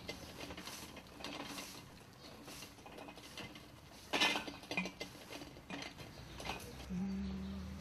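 Small metal two-wheeled hand trolley rattling and clattering as it is pulled over asphalt, in irregular knocks with the loudest about four seconds in. A steady low hum comes in near the end.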